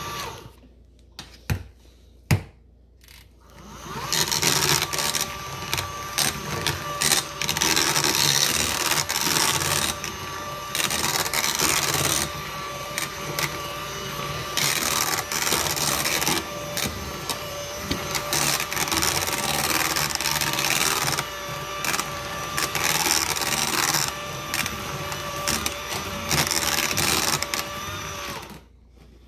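Battery-powered KitchenAid cordless hand mixer running with a steady whine, its beaters churning mashed potatoes in a metal saucepan. It stops briefly with two clicks, starts again about four seconds in, and cuts off near the end.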